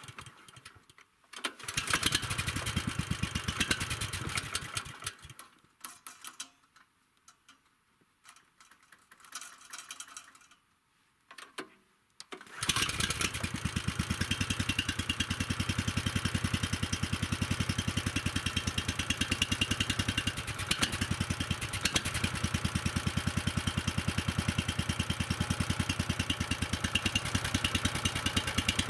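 Motorized towing sled (motor-dog) engine being started. It runs for about four seconds and cuts out, and after a quiet pause of several seconds it starts again about twelve seconds in and keeps running steadily with an even beat.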